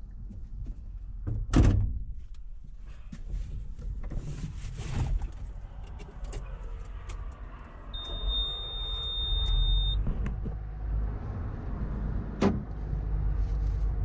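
A heavy diesel engine running low and steady, with a loud metal knock like a door shutting about a second and a half in and another sharp knock near the end. Midway a steady high beep sounds for about two seconds, and the engine grows louder after it.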